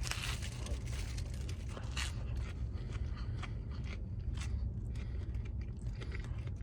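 Someone biting into and chewing a toasted cheese, ham and onion sandwich: irregular small crunches and crackles over a steady low hum.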